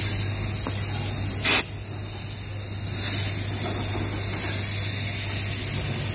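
Compressed air hissing steadily into the exhaust port of a cylinder head during a valve leak test, with a brief louder blast about one and a half seconds in. The air leaks past the exhaust valve, the cause of the cylinder's misfire.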